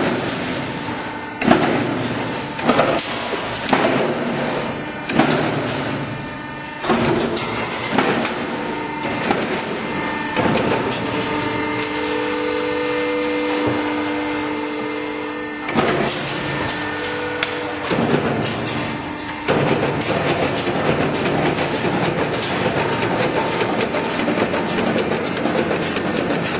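Sheet-metal rollforming line running, its cut-off press striking sharply about every second and a half at first. The strikes then thin out under a steady mechanical run with a humming whine. From about two-thirds of the way in, a denser, even machine noise takes over.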